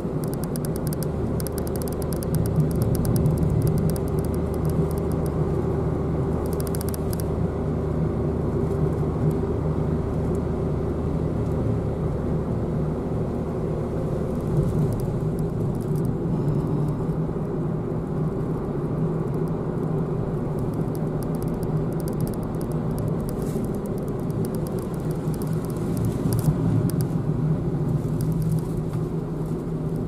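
A car's engine and road noise heard from inside the cabin while driving: a steady hum, whose deepest note drops away about halfway through.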